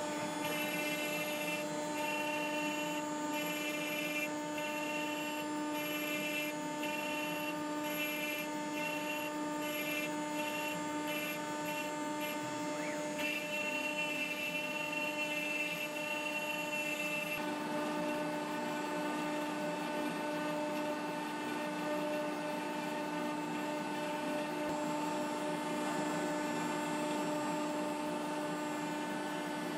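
CNC router spindle running with a steady whine while its end mill cuts a curved pocket into a wooden board. The cutting noise pulses through roughly the first half, then settles into an even, unbroken tone.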